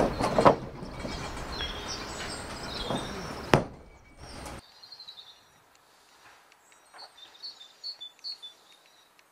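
Outdoor noise on a scaffold with several knocks, the loudest a sharp knock about three and a half seconds in. Partway through it drops to a quiet spell with small birds chirping in short bursts.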